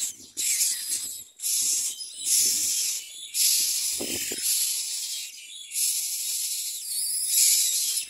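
Common myna nestlings begging with harsh, hissing rasps, repeated in bursts from under a second to about two seconds long with short breaks between them.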